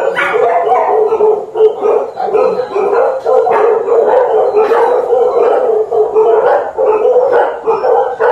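Many penned dogs barking and howling at once, a loud continuous din of overlapping calls.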